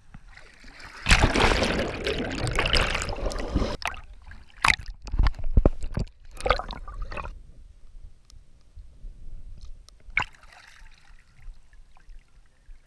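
Lake water splashing and sloshing against a waterproof GoPro housing at the surface. It begins with a loud rush of water for about three seconds, followed by a few sharp splashes, then quieter drips and trickles with one last splash near the end.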